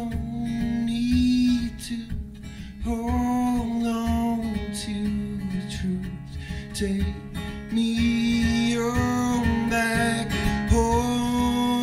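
Live folk-rock band playing an instrumental passage: strummed acoustic guitar, upright bass and drum kit, with long held melody notes over the top.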